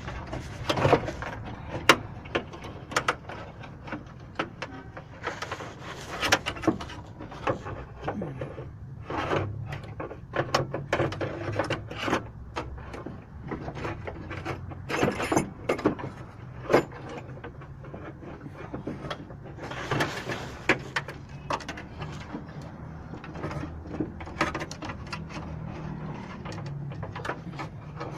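Irregular clicks, knocks and rattles of metal parts and hand tools as a car door lock is worked back into place inside the door, over a low steady hum.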